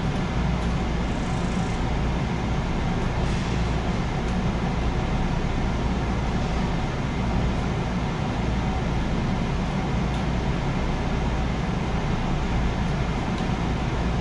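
Steady running noise of a JR West 221 series electric train heard from inside the passenger car: an even rumble from the wheels and running gear on the rails.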